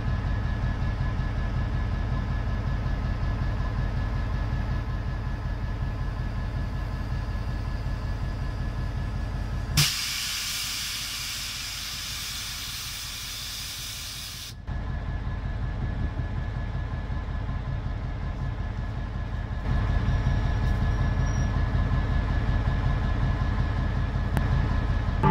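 Standing diesel locomotives idling with a steady low rumble and a faint whine. Midway, a loud hiss of released air lasts about five seconds and cuts off suddenly, and then the idling goes on.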